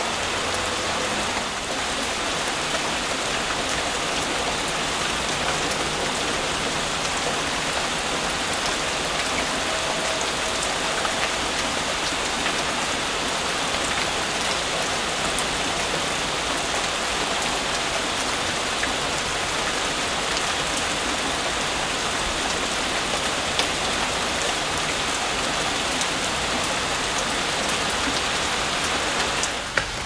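Steady rain falling on leafy trees: a constant hiss with many single drops ticking through it, a little softer near the end.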